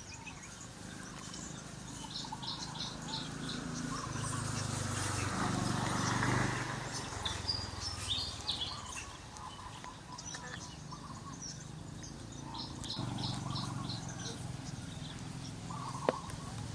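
Small birds chirping in quick series of short, high notes over a low steady background hum, with a louder noisy swell near the middle.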